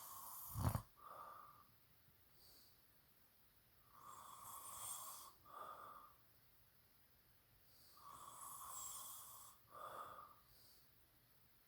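A person snoring softly, a breath about every four seconds, each a longer rasping part followed by a short one. A brief thump about half a second in is the loudest sound.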